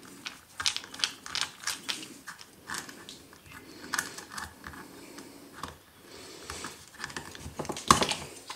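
A screwdriver turning the screw of a hose clamp on a bicycle floor pump's hose, loosening it, with irregular light clicks. Near the end there is a louder knock as the pump is handled.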